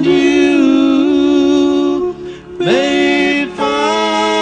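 Male vocal duo singing long held notes in close harmony, in phrases broken by short gaps about two and three and a half seconds in.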